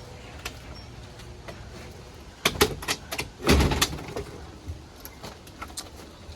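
Footsteps, with a short burst of loud clattering knocks and rattles about two and a half seconds in.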